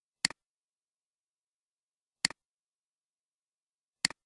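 Three computer mouse clicks, about two seconds apart, each a quick double snap of button press and release, with dead silence between them.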